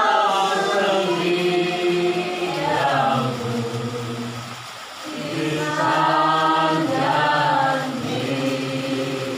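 A group of voices singing a slow Indonesian Christian worship song, with long held notes in two phrases and a short dip between them about five seconds in.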